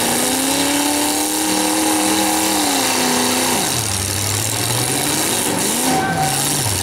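V8 demolition derby car engine revving hard at a high steady pitch, then dropping to a much lower speed about three and a half seconds in, with a short rise in revs near the end.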